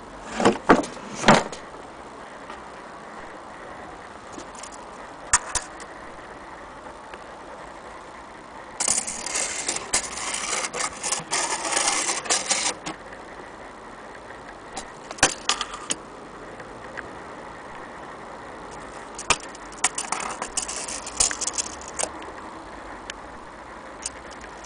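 Handling sounds of an old pine wood case and a steel tape measure: a few sharp knocks near the start, then about four seconds of rattling scrape as the metal tape blade is pulled out across the case, and scattered clicks later, over a steady background hiss.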